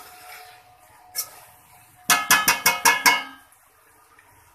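Spatula knocking on the rim of a stainless-steel karahi: one knock, then a quick run of about eight ringing metallic taps.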